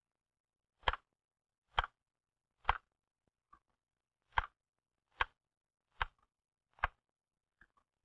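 L.C. Smith manual typewriter being typed on: eight sharp clacks of single keystrokes at a slow, even pace a little under a second apart, with two fainter taps among them. The strokes follow each other steadily with no pauses between them.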